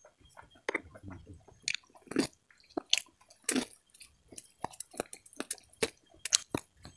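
Close-up chewing and biting of corn on the cob: irregular crisp clicks and wet crunches as kernels are bitten off the cob and chewed.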